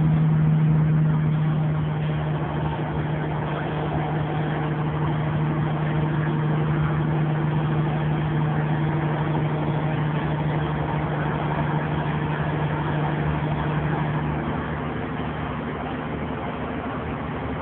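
Kenworth semi-truck's diesel engine droning steadily under load while climbing a mountain grade, heard from inside the cab. The drone eases a little near the end.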